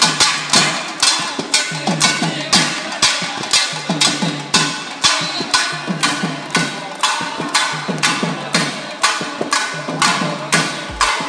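Background music with a steady, sharp percussion beat, about two to three hits a second, over a melody.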